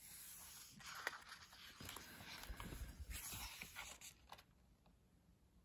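Pages of a hardback book with thick, slightly glossy paper being turned by hand: a faint papery rustle and scrape with a few small clicks, stopping a little past four seconds in.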